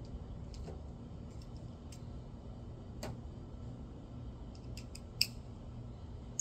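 Scattered light clicks and clinks of hand tools being handled, with one sharper click about five seconds in, over a steady low hum.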